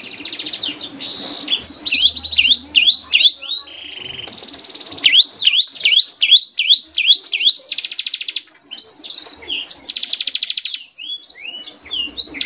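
Bar-winged prinia (ciblek) singing continuously: very fast, machine-gun-like trills alternate with runs of quick, sharply sweeping high notes.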